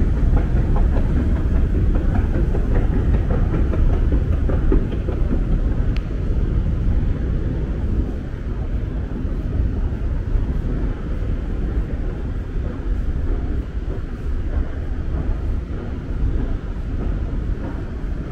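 Steady low rumble of a London Underground station, the running of trains and machinery in the tunnels, easing a little after about eight seconds, with a single sharp click near the middle.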